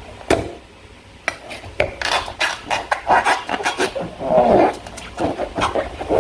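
Slime being squished and worked by hand, giving irregular sticky crackles and squelching clicks, quiet for about a second near the start.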